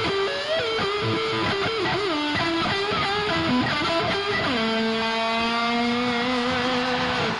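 Electric guitar lead playing bending, fast-moving notes over a rock band's drums and bass. About four and a half seconds in it slides down into one long held note, which cuts off near the end.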